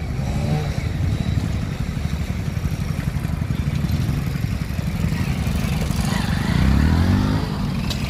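Diesel engine of a Plasser track-maintenance machine running as the machine moves along the track, a steady low rumble. About six seconds in, an engine revs up and falls back, the loudest moment.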